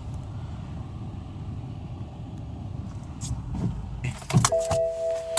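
Low, steady engine and road rumble inside a moving car's cabin. About four seconds in it changes abruptly to a few sharp clicks and knocks and a held tone of several steady pitches.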